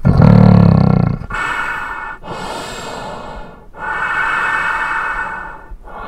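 Monster sound effect: a loud, deep roar that starts suddenly, followed by three long growling, rasping breaths with short breaks between them.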